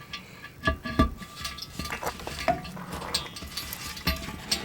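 Stainless steel washers clinking together as they are handled and picked out, several sharp metallic clinks with a brief ring. The washers are being used as shims to lift one side.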